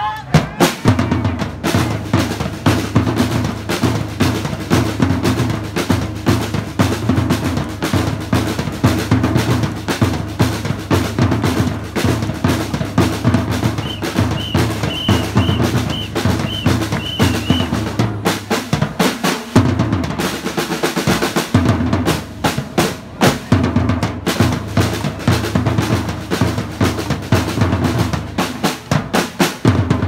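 A street drum line playing: dense, rapid snare-drum strokes over a steady pulse of large bass drums. About halfway through, a run of about seven short high pips sounds over the drumming, and soon after the bass drums briefly drop out before coming back in.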